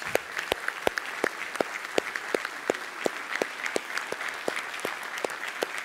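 Audience applauding steadily. A few louder claps close by stand out at about three a second.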